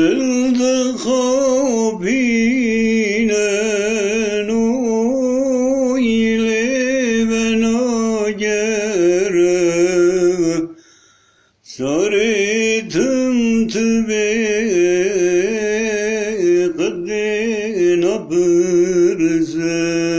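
A man singing solo in long, ornamented phrases with a wavering melody. He stops for about a second around the middle, then sings a second long phrase.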